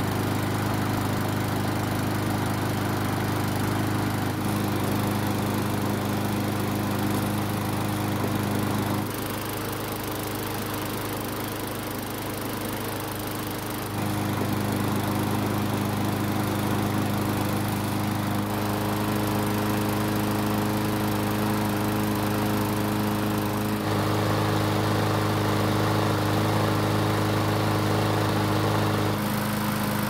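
Yard Machines push mower's small single-cylinder engine running steadily at a constant speed just after being pull-started. It is running the way it should after its carburetor was cleaned and refitted. The tone shifts abruptly a few times.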